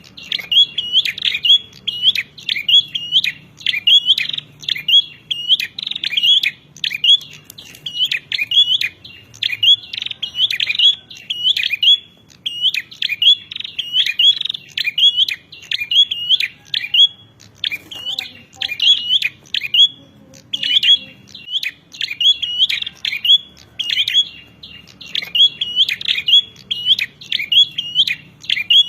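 Prinia (prenjak) giving its rapid fighting call: a fast run of sharp, high chirps, about three a second, broken by a few short pauses.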